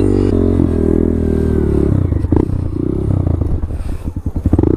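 Motorcycle engine revving up and down as the bike rides across snow. The sound turns choppy with rapid rattling for a moment near the end.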